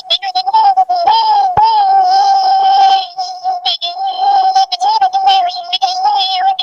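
Music with a high, synthetic-sounding sung voice carrying a choppy, bending melody.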